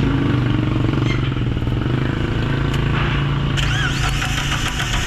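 Suzuki APV engine idling roughly, shaking from a misfire caused by a cracked, leaking ignition coil. Past the middle, a quick run of sharp snapping clicks joins in, fitting spark arcing out of the coil instead of going to the spark plug.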